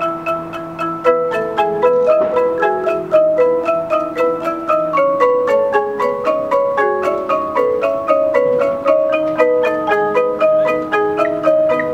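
Front ensemble of marimbas and vibraphones playing a steady, fast run of mallet notes, about six a second, over held chords.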